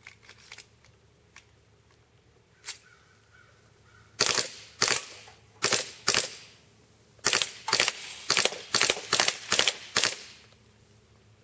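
Gas airsoft pistol firing: four sharp single shots, then a quick string of about ten shots in roughly three seconds.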